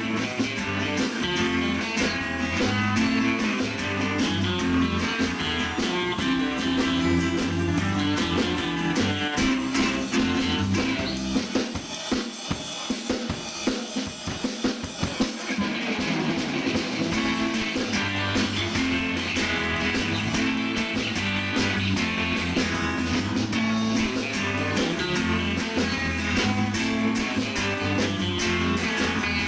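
Live band playing a 1960s rock instrumental: lead electric guitar on a Fender Stratocaster over bass and drum kit. About twelve seconds in the bass drops out for a few seconds, then the full band comes back in.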